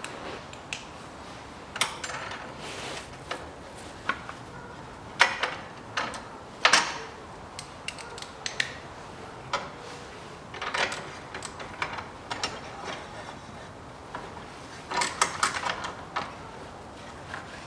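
Ratchet wrench with a long extension clicking in short, irregular bursts as it tightens the loose battery hold-down bolt.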